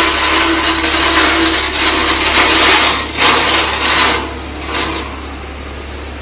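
Crushed stone pouring out of a dump truck's bed: a loud rushing hiss that surges a few times, then eases off about four seconds in, over the low hum of the truck's engine.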